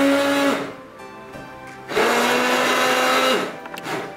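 Electric hand blender blending avocado, banana and milk in a tall beaker, run in two goes: the motor whine winds down about half a second in, then starts again near two seconds and runs for about a second and a half before winding down again.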